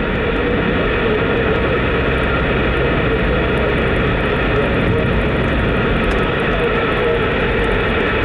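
Steady hiss of CB radio static from a CRT 9900 receiver on SSB, mixed with road noise from the moving car. No readable signal comes through: the distant station calling back is too weak to make out.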